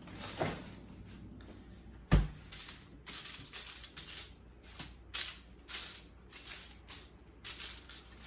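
A fridge's freezer door shuts with a single thud about two seconds in. Aluminium foil then crinkles in quick, uneven rustles as frozen tempura shrimp are handled and arranged on it.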